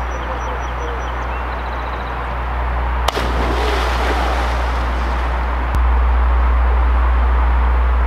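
A person dropping feet-first from a high bridge into a river: a sharp smack as the body hits the water about three seconds in, followed by the rushing spray of the splash, over a steady low rumble.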